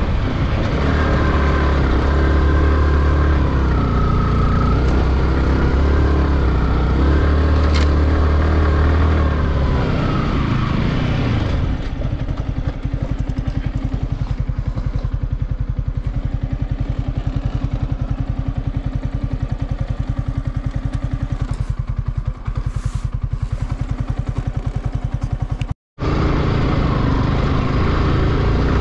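Yamaha R15's single-cylinder motorcycle engine running under way through sand for about the first ten seconds, its note rising and falling with the throttle. It then settles into a steady, even idle while the bike stands. A brief dropout comes near the end, after which the bike is running under way again.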